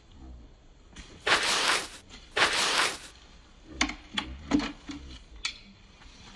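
Two short hissing swishes of under a second each, a sound effect dubbed over the brushing of cement onto PVC drain pipe. They are followed by several sharp clicks and knocks.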